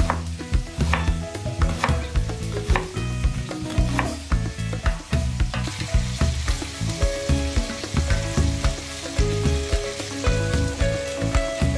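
A kitchen knife slicing through a leek onto a wooden cutting board in a string of sharp knocks, then, about halfway through, vegetables (red pepper, mushrooms and leek) sizzling in oil in a wok, a steady hiss.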